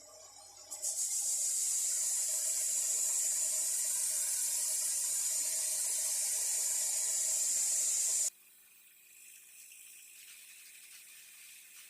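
A loud steady spraying hiss that starts abruptly about a second in and cuts off sharply some seven seconds later.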